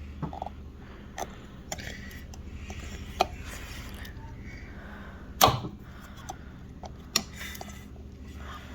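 Sharp metal clicks and taps of a tool working at a snap ring on an A904 transmission clutch drum, the ring partly welded in place by heat; the loudest click comes about five and a half seconds in. A steady low hum runs underneath.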